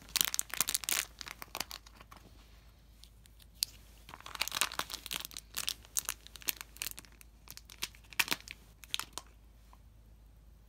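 Foil-like wrapper on a surprise egg crinkling and tearing as it is unwrapped by hand, in irregular bursts of crackling with short pauses between.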